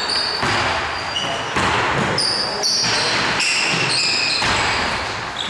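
Basketball being played on an indoor court: the ball bouncing on the floor about once a second, with short high squeaks of shoes on the court.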